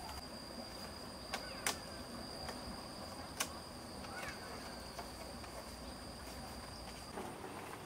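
Steady high-pitched insect trill that stops near the end, over faint outdoor background, with a few sharp clicks as bamboo poles are lashed together with bamboo strips.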